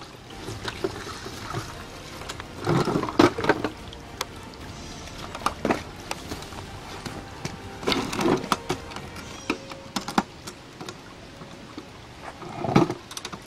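Handling noise of an ammo box being pulled from a creek bed, carried and set down, with footsteps on wet rock and dirt: knocks and scuffs in three clusters, about three seconds in, about eight seconds in and near the end.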